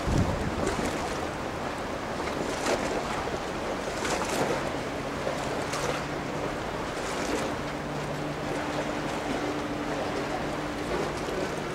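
Wind rushing and gusting on the microphone over open water. About four and a half seconds in, a low steady engine-like hum comes in underneath and holds.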